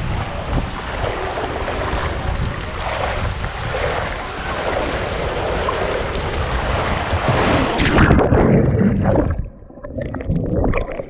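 Rushing water and the rider sliding down a fibreglass water slide. About eight seconds in comes the loud splash into the pool, then muffled underwater gurgling and bubbles.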